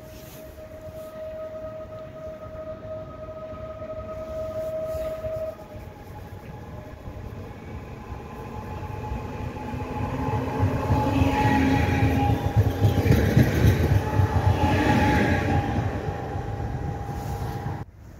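Koleje Śląskie 34WE electric multiple unit pulling away and passing close by. A steady electric whine steps up in pitch about five and a half seconds in, while the rumble of the wheels on the rails grows louder toward the middle and fades near the end.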